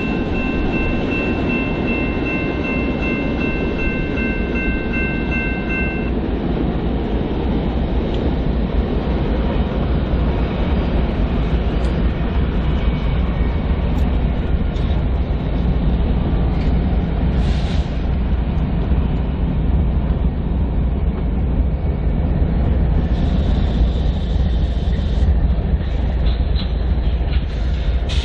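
BNSF freight train rolling past at a crossing: a steady, loud rumble and clatter of wheels on rail. A high ringing tone sounds over it and stops about six seconds in.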